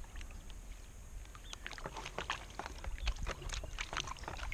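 Paydirt and water sloshing in a plastic gold pan as it is dipped and worked in a tub of water to pan the material down, with irregular small splashes and ticks.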